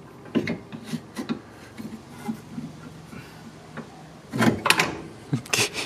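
Metal knocks and scrapes as an aftermarket adjustable rear camber arm is worked into place against the rear hub carrier of a Nissan Skyline R32. The knocks are scattered, with a louder cluster about four and a half seconds in.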